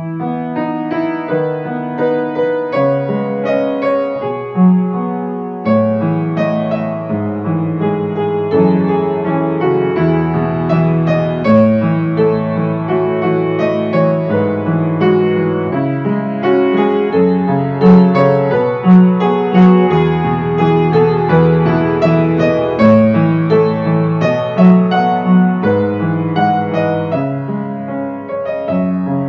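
Instrumental piano music: a steady run of notes over held low chords.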